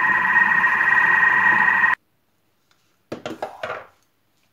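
Thermomix kitchen machine giving a loud, steady high tone with a second steady tone beneath it and a low hum, cut off abruptly about two seconds in. A few short clatters follow about a second later.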